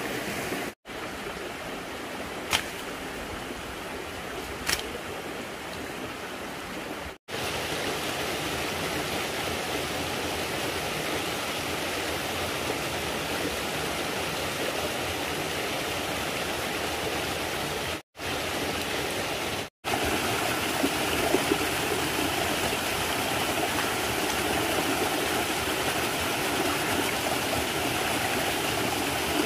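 Steady rush of running water, an even noise with no rhythm, with two sharp clicks early on and a few brief cut-outs to silence.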